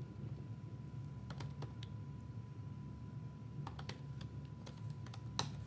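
Computer keyboard being typed on: a few scattered keystrokes in small groups, one louder near the end, over a faint low hum.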